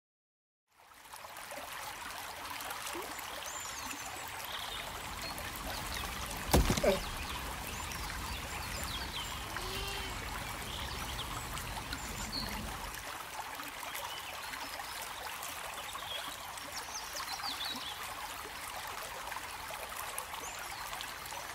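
Shallow river running over stones: a steady trickling flow, with a few faint high chirps over it. A single sharp knock about a third of the way through is the loudest sound.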